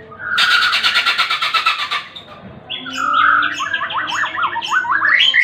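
White-rumped shama (murai batu) singing: a fast, harsh rattle lasting about a second and a half, then, after a short pause, a quick run of repeated sweeping whistled notes.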